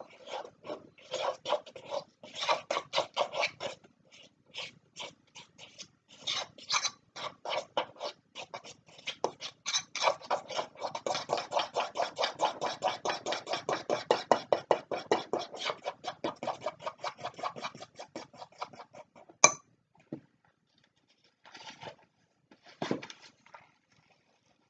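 Dairy-free buttercream icing of icing sugar, margarine and water being beaten by hand in a bowl: fast, rhythmic scraping strokes, about five a second. The beating stops about three quarters of the way through, followed by one sharp knock and a few softer clatters.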